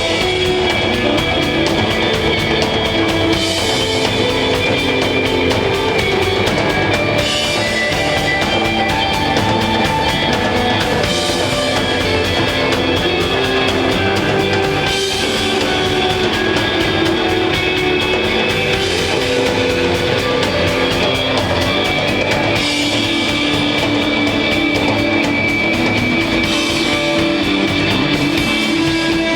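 A live rock band playing loud instrumental desert rock: sustained electric guitar lines over bass and a steadily played drum kit, with no singing.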